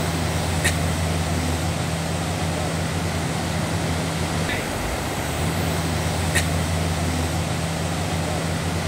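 Rushing river water over rocks, with the steady low hum of a Mahindra Bolero pickup's engine as it wades through the ford. Two sharp clicks, one under a second in and one about six seconds in.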